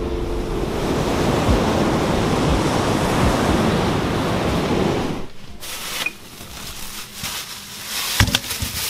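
Ocean surf breaking on a beach, with wind on the microphone. About five seconds in it cuts off abruptly to a quieter stretch with a few light knocks and clinks, the loudest near the end.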